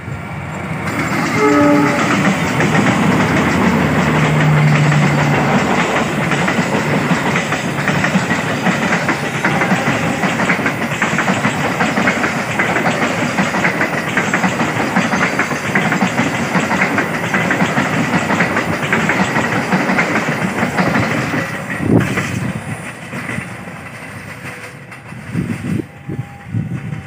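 A diesel locomotive hauling a long passenger train passes close by. A brief horn blast sounds about two seconds in, followed by the steady rumble and clatter of the coaches' wheels on the rails, which fades after about 22 seconds as the train moves away.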